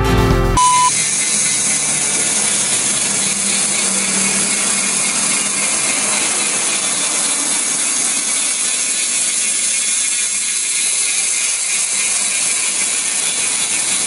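A short test-tone beep, then a steady hiss like TV static, unchanging in level, that cuts off suddenly at the end.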